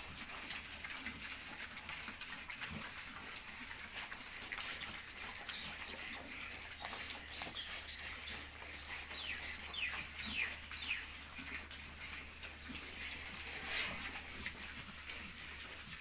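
Pigs feeding on pellet feed scattered over a concrete floor, with quiet chewing and rooting. Birds chirp in the background, with a quick run of falling chirps about nine to eleven seconds in.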